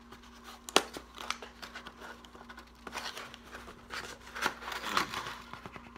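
Crinkling and rustling with scattered sharp clicks, from phone-case packaging and the case being handled.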